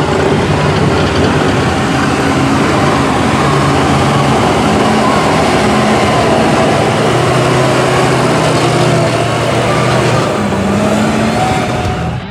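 Lifted mud-bog pickup's engine running hard as the truck drives through a mud pit, its pitch rising and falling with the throttle, over a steady rushing noise.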